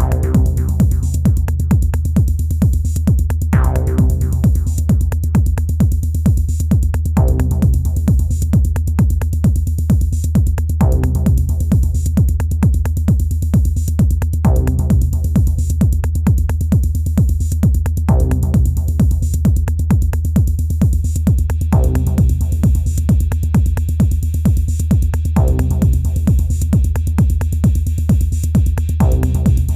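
Elektron Analog Rytm drum machine playing an improvised techno pattern: a steady driving beat over a deep, constant bass, with a pitched phrase returning about every three and a half seconds. About two-thirds of the way through, a brighter hissing layer comes in on top.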